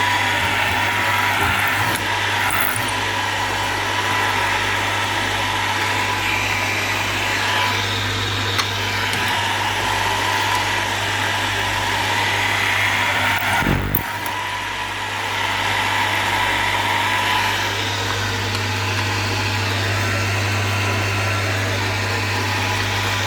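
Electric motor of a homemade multi-spindle drilling machine running steadily with a strong hum, drilling frame side bars. A sharp knock about 14 seconds in.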